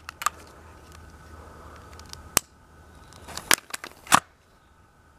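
Clicks and clacks of a break-barrel spring pellet gun being handled as it is readied for a firecracker-powered shot. There are a few light clicks, then a sharp click a little past two seconds, a quick cluster of clacks, and the loudest snap about four seconds in, as the barrel is shut.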